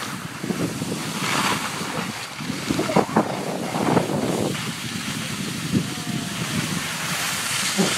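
Wind rushing over the microphone, mixed with snowboards scraping and sliding over packed snow.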